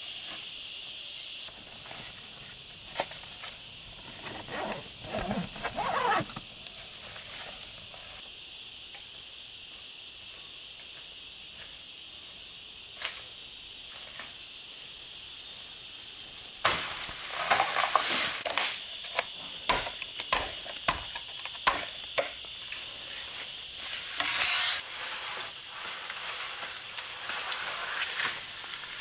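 Steady high-pitched chorus of rainforest insects. Irregular rustling, scraping and sharp knocks come over it, busiest about two-thirds of the way through.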